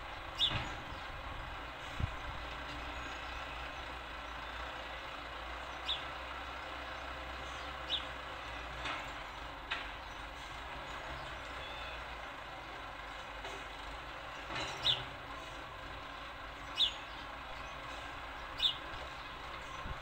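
House sparrow giving scattered single chirps, about eight in all, over a steady background din of trucks and construction machinery.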